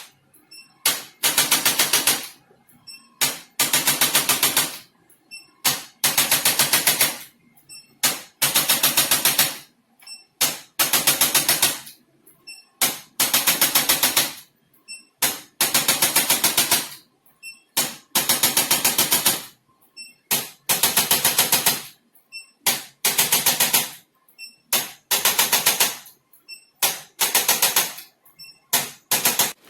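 Handheld electric percussion massager rattling against the body in rapid pulses, switched on or pressed on in runs of about a second that repeat every second or two with short gaps.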